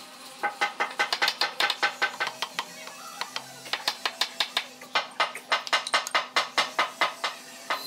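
Hammer knocking rapidly on a wooden joint, about five to six sharp knocks a second, with a short pause about three seconds in.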